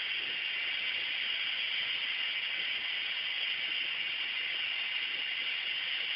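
Tap water running steadily into a large coffee urn as it is filled: an even hiss.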